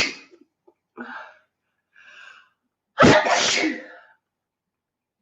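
A young woman's allergy sneezes. The tail of one sneeze fades at the start, she draws two short breaths in, then gives a loud sneeze about three seconds in.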